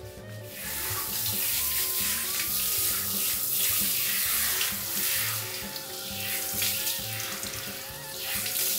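Handheld shower head spraying water over a wet poodle's curly coat: a steady hiss of running water that starts about half a second in.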